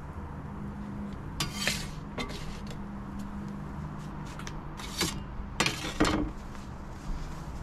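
A pizza peel scraping across the stone floor of an Ooni pizza oven as the pizza is slid out, then scraping and knocking on the wooden table as it is set down, in a few short bursts with the loudest cluster near the end.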